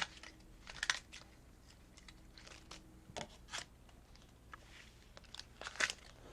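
Hands rummaging through craft supplies: short bursts of rustling and crinkling of paper and plastic packets, a few times over.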